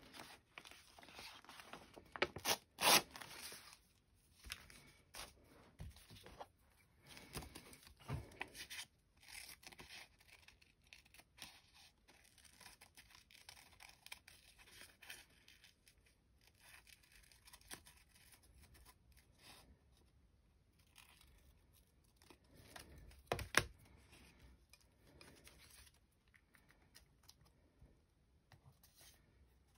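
Sheets of gelli-printed collage paper rustling as they are handled, and scissors cutting through the paper in a run of short snips. The loudest rustles come about three seconds in and again near the end.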